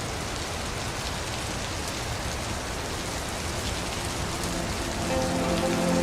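Steady rain falling into a puddle, an even patter with no thunder heard. Soft sustained music tones come back in near the end.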